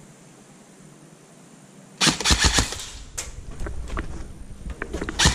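Airsoft rifle firing on full auto: a rapid burst of under a second starting about two seconds in, a few scattered single shots after it, and another rapid burst starting at the very end.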